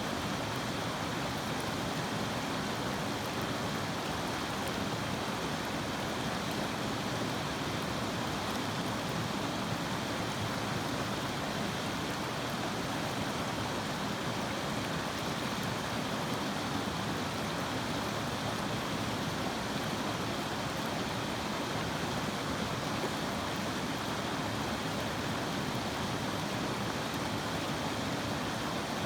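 River water flowing: an even, steady wash of moving water that does not change.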